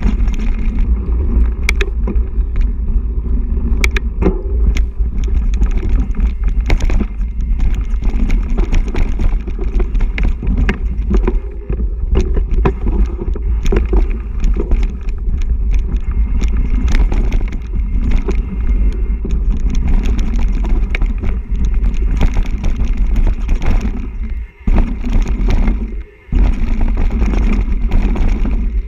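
Mountain bike riding fast over a dirt forest trail, heard from a rider-carried action camera: a steady wind-and-tyre rumble with frequent sharp clicks and rattles over bumps. The sound drops out briefly twice near the end.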